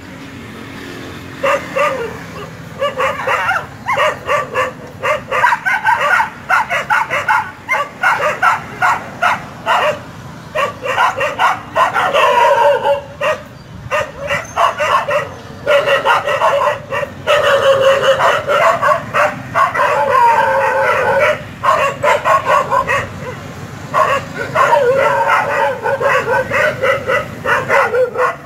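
Brown village dogs yelping and barking in quick, overlapping bursts for most of the stretch, broken by a few longer wavering cries.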